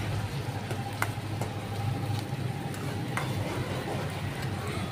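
Chopped onions sizzling in hot oil in a steel kadhai over a steady low rumble, while a spatula stirs them and clicks against the pan twice, about a second in and again after three seconds.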